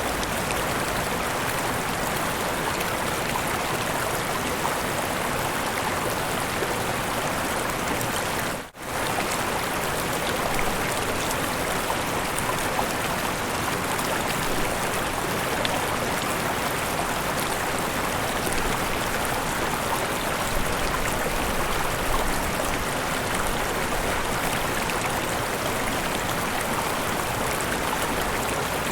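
Mountain river and small waterfalls, water rushing steadily. The sound drops out for a split second about nine seconds in, then carries on as before.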